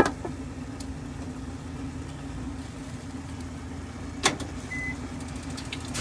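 A metal lid clanks down onto a wok, then a steady low hum runs under the covered pan, with a second sharp clack about four seconds in.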